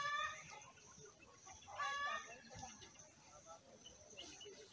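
A chicken calling twice, one short call at the very start and another about two seconds in.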